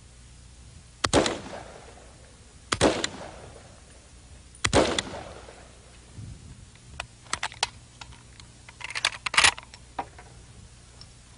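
Semi-automatic hunting rifle fired three times, one shot per trigger pull, roughly two seconds apart, each crack with an echoing tail. Later come lighter clicks and a quick cluster of sharp knocks near the end.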